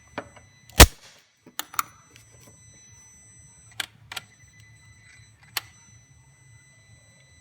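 Scattered clicks and knocks of tools and a compression gauge being handled, with one loud knock about a second in and a few lighter clicks after it. A faint steady high whine and low hum sit underneath.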